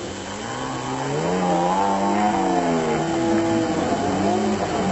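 Off-road race pickup's engine revving under load: its pitch climbs over the first two seconds or so, then drops back and holds steady.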